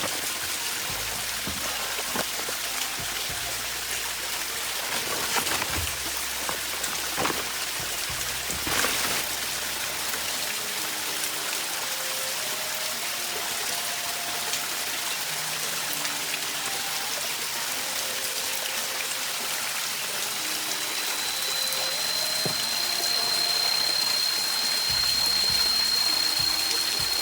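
Steady hiss of water, like rain or a stream, with a few sharp knocks in the first nine seconds. Soft melodic notes come in about eleven seconds in, and a thin, steady high whine joins about twenty-one seconds in.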